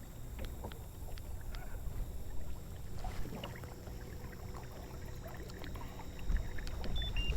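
Water lapping and splashing against a kayak hull, with small ticks and a steady low rumble that grows louder about six seconds in.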